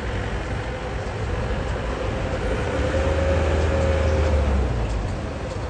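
Outdoor traffic noise with a heavy motor vehicle's engine rumble that grows louder about halfway through and then fades as it passes.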